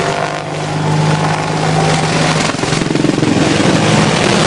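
Helicopter flying by, a steady engine and rotor drone with a low hum, turning rougher and noisier about two and a half seconds in.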